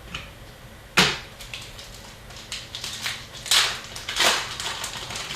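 Trading card packs and cards being handled in a box break: sharp crinkling and snapping, loudest about a second in and again near the middle.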